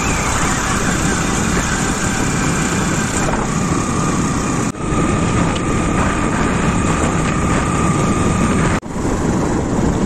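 Steady noise of a motorbike ride: engine and road noise mixed with wind rushing over the microphone, with a faint steady whine. The sound drops out sharply twice, briefly.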